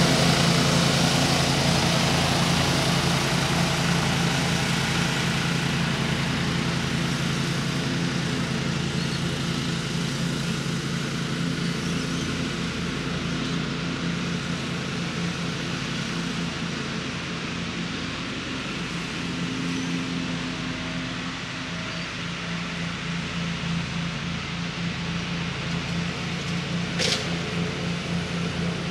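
Walker ride-on mower's engine running steadily, fading as the mower moves away, then growing a little louder again toward the end. A single sharp click about a second before the end.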